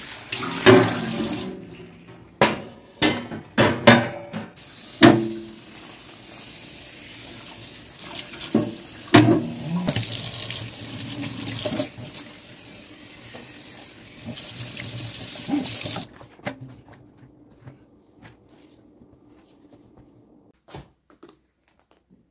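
Kitchen tap running into a stainless steel sink while dishes and the sink are rinsed, with several sharp knocks and clatters of items against the sink. The water cuts off suddenly about two-thirds of the way through, leaving a few faint clicks.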